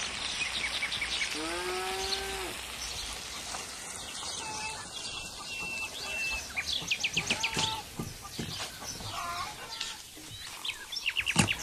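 Songbirds chirping and trilling, with a farmyard fowl giving one pitched call about two seconds in. Near the end, a few quick knocks of a knife chopping green onions on a wooden board.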